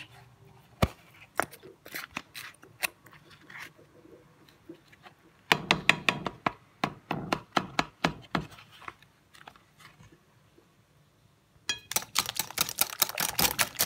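Scattered taps and a short run of clicks, then, after a pause, a hand wire whisk beating against the bowl near the end with quick, even clicks as cream is whisked into beaten eggs and sugar.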